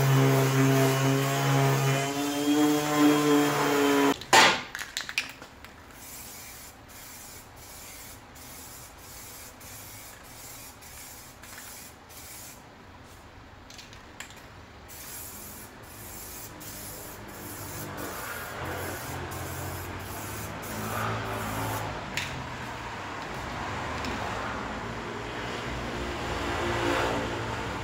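A motor runs with a steady hum, rising a little in pitch about two seconds in, then cuts off with a click about four seconds in. After that only a faint hiss and a low hum remain, and the hum grows slightly louder near the end.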